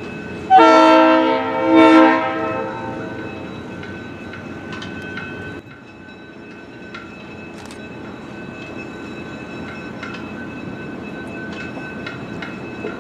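Train air horn sounds two blasts, the first about a second long and the second shorter. Then the passenger train rolls slowly with a steady rumble and scattered clicks of wheels over rail joints.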